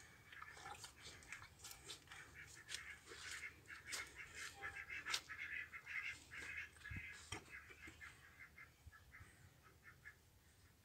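Ducks calling in a faint, fast chatter of short calls that thins out toward the end, with a few sharp clicks, the loudest about five seconds in.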